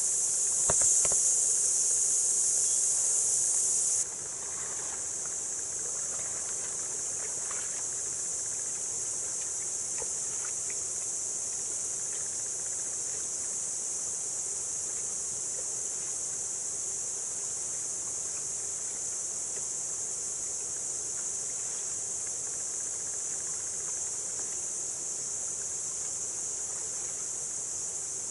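Dense, steady, high-pitched chorus of insects, shrilling without pause, dropping a little in level about four seconds in.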